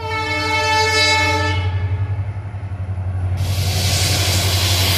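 Diesel locomotive hauling a freight train sounds its horn for about two seconds over the steady low drone of its engine. About three and a half seconds in, a rushing rumble of the approaching train comes in and grows louder.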